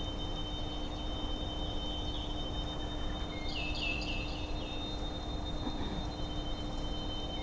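Electronic soundscape of steady high tones over a low hum, with a quick run of about five short falling chirps about three and a half seconds in.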